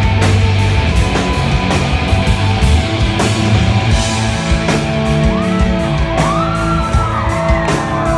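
A rock band playing live: distorted electric guitars, bass and drums pounding along, heard from the audience in a hall. From about five seconds in, high rising-and-falling tones slide over the top.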